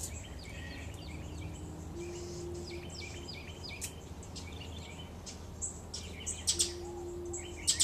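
Wild songbirds chirping: a busy run of short, quick downward-slurred chirps, with a few sharp clicks near the end, over a steady low background hum.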